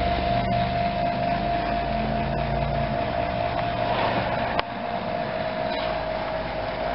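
Steady mechanical hum with a constant whining tone, its low rumble easing off about three seconds in; a single sharp click about four and a half seconds in.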